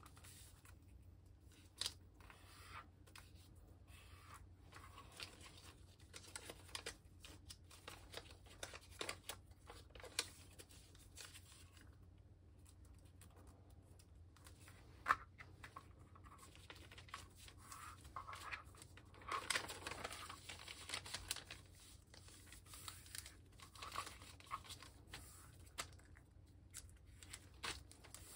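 A large sheet of origami paper rustling and crinkling as hands fold it, smooth it and press creases flat against a cutting mat: faint, scattered short swishes and crackles, busiest about two-thirds of the way through, with one sharp tick about halfway.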